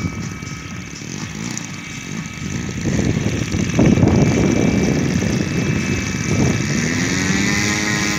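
Radio-controlled scale model Boeing CH-47 Chinook flying low past, its tandem rotors and motor running with a rough, churning rotor noise that gets louder about three seconds in as it comes closest. Near the end the motor's pitch rises and then holds steady.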